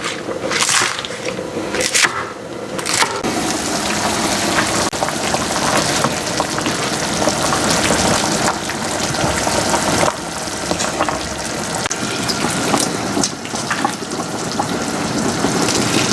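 A few short knocks and scrapes, then water running steadily from about three seconds in.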